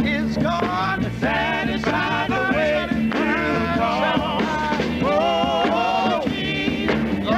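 Gospel quartet music: voices singing over a steady instrumental accompaniment.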